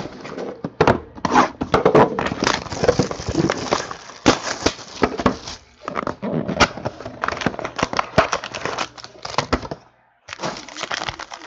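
Hands handling trading-card boxes and foil packs: quick crinkling of wrappers with many clicks and knocks of cardboard on the table, breaking off for a moment near the end.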